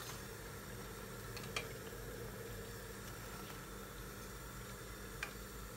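Steady, faint sizzle of yeast donuts frying in hot oil, with two light clicks, about a second and a half in and near the end.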